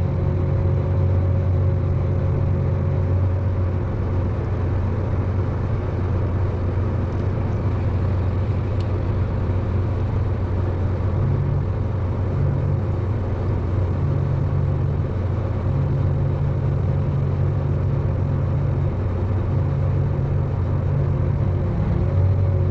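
Tractor engine running steadily, a constant low drone with a faint steady whine above it.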